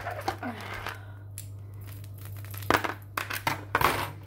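Handling noise of a beaded bracelet being picked up and moved close to a phone's microphone: crinkly rustling and small clicks in a few short bursts near the start and again in the last second and a half, with a quieter gap between. A steady low hum runs underneath.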